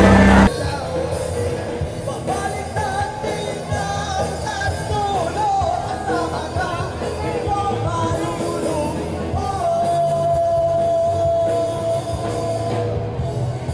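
Band music with a singer, rock-style backing under a wavering sung melody; the singer holds one long note about ten seconds in.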